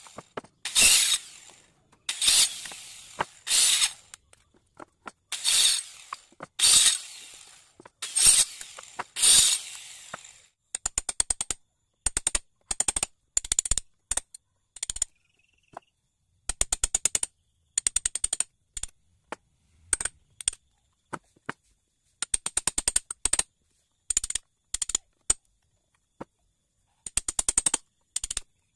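Hand-tool work on teak boards: about seven rasping strokes, roughly one every second and a half, then from about ten seconds in short bursts of rapid clicking that come and go.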